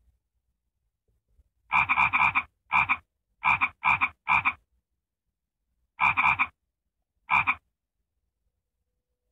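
A frog croaking in short, repeated calls: a quick run of about six croaks from about two seconds in, a pause, then two more near the end.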